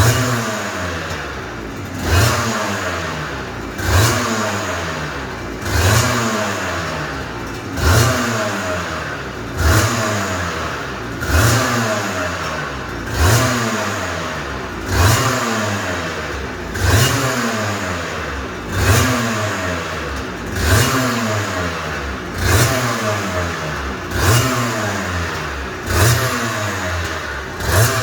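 Aprilia RS250 Mk1's two-stroke V-twin engine being blipped over and over, about every two seconds: each time the revs jump sharply, then fall away.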